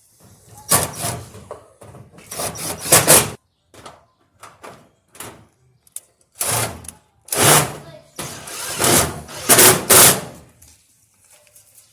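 Sheet-metal dryer cabinet panels being handled and fastened: a series of loud clattering and scraping bursts, each about half a second to a second long, with short pauses between.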